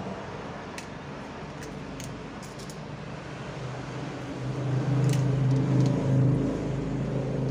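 Scissors snipping small pieces of battery metal, heard as a few faint clicks, under a steady engine-like hum that grows louder about halfway through.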